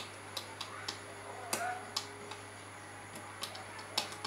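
Small screwdriver working the screw terminals of an amplifier board: a string of irregular sharp metal clicks, the loudest about a second and a half in and near the end.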